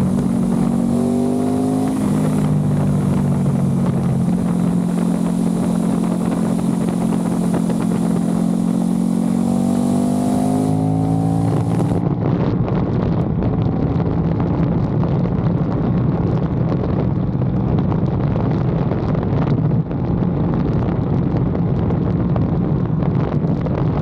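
Aprilia RS660's parallel-twin engine through a Mivv Delta Race exhaust, running at road speed. From about halfway the bike accelerates hard and wind buffets the microphone.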